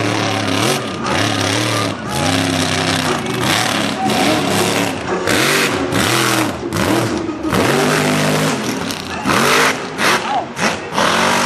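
Mega mud truck's engine revving hard in repeated bursts, its pitch climbing and dropping again and again, with loud rushing bursts as the big tyres churn and throw mud.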